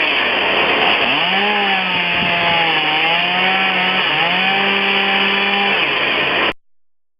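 Chainsaw running under load, its engine pitch rising and dipping as it cuts wood, then cutting off abruptly near the end.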